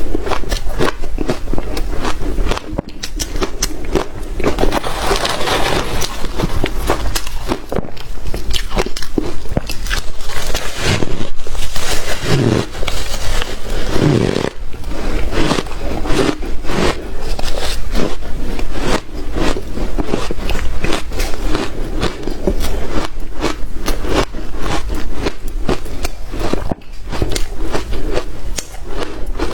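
Hard shaved ice being bitten and chewed close to the microphone: dense, irregular crunching and crackling, with some scraping.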